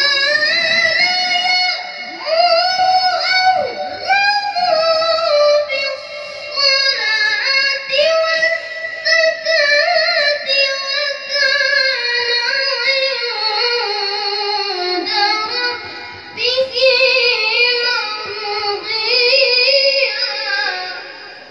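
A boy qari chanting Quran recitation (tilawah) in a high voice through a PA microphone, with long held notes and ornamented runs. The melody sinks gradually through most of the phrase, then climbs again near the end.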